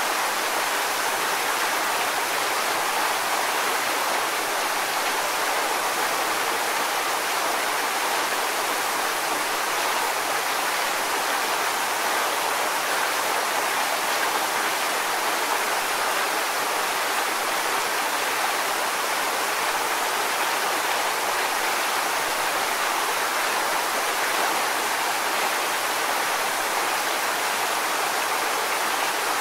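Waterfall: a steady, unbroken rush of falling and splashing water, bright and hissy with little deep rumble.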